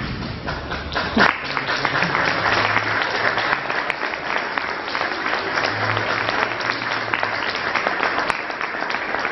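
Audience applauding, a steady crackle of many hands clapping, with one short loud sound about a second in.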